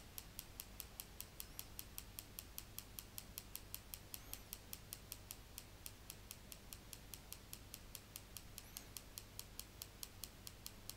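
Faint computer mouse button clicked rapidly and evenly, about four or five clicks a second, repeatedly pressing a Run button.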